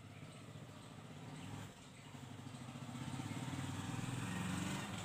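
Motor vehicle engine running with a low hum, growing steadily louder as it approaches.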